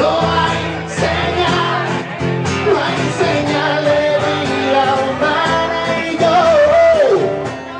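Live band music: a man singing at a microphone over strummed acoustic guitars, the voice holding and bending long notes.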